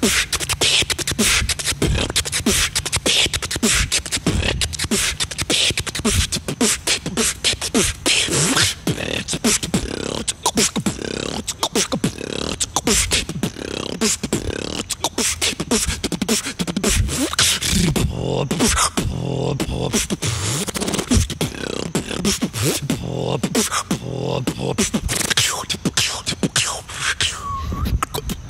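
Beatboxing: one performer's voice making a fast, continuous run of drum-like kicks, snares and clicks, with pitched vocal tones woven in during the second half. It stops just before the end.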